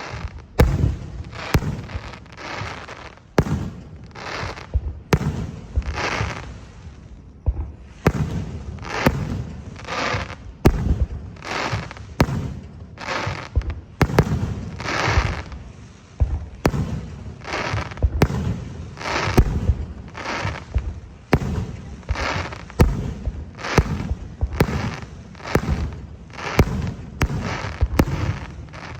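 Aerial fireworks bursting in quick succession, one or two sharp bangs a second, each trailed by crackling and echo.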